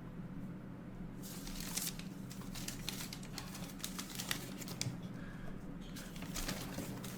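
Packaging being handled: quick crinkling and rustling in bursts, starting a little over a second in, pausing briefly and picking up again near the end, over a steady low hum.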